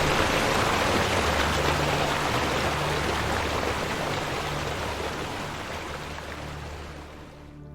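Rushing water of a waterfall, a steady hiss that fades out gradually, dropping away almost completely near the end.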